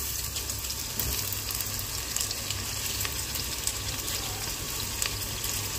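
Onions and garlic frying in oil in an aluminium pressure cooker: a steady sizzle with fine crackling, over a low steady hum.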